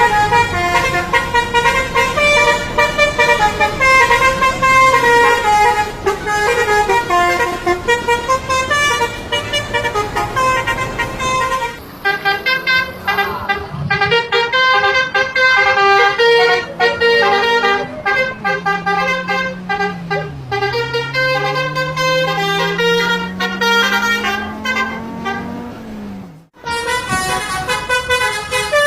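Bus 'telolet' multi-tone air horns playing quick, tune-like runs of notes again and again. In the second half a low tone slides slowly up and down beneath them. The sound cuts out briefly near the end.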